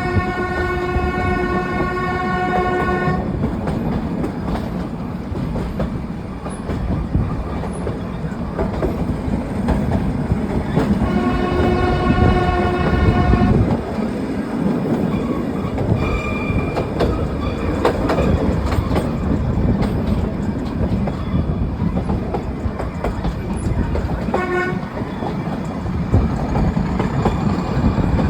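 Nilgiri Mountain Railway toy train running, its wheels clattering on the track. Its horn sounds one long blast at the start, another long blast about eleven seconds in, and a short toot near the end.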